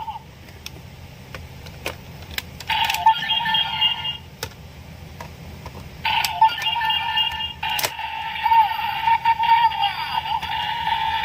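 Kamen Rider Revice toy's electronic sound effects and voice calls played through its small tinny speaker, with the SG Mammoth Vistamp in it. They come in three stretches, the last one running on, with a few sharp plastic clicks before and between them.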